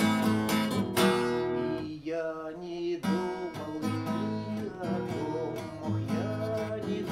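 Acoustic guitar strumming chords in an instrumental break between sung verses of a song.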